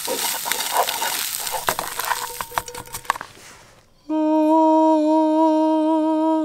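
Eggs sizzling in a skillet over campfire coals, stirred and scraped with a utensil, dying away after about three seconds. Then a person hums one long steady note for about two seconds, which cuts off suddenly.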